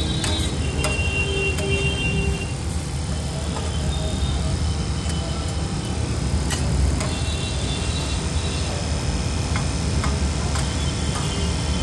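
Metal spatula scraping and clicking against a large flat iron griddle as a heap of chow mein noodles is turned and spread, with scattered sharp ticks over a steady low rumble.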